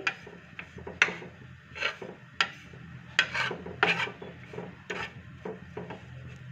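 Wooden spatula scraping and stirring grated dried coconut across a dry pan as it is roasted, a run of irregular rasping strokes about once or twice a second.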